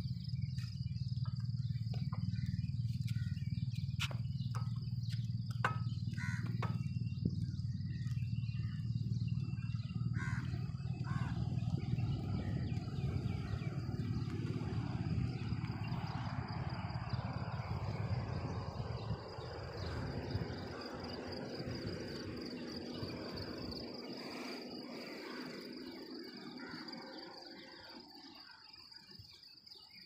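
Insects chirring in one steady high-pitched tone, over a low rumble that fades away over the second half.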